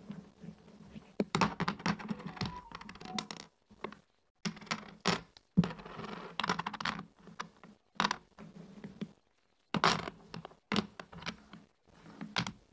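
Backgammon checkers clicking and knocking as they are set down and slid onto the points of a wooden backgammon board, in quick, irregular clusters of clicks with short pauses between.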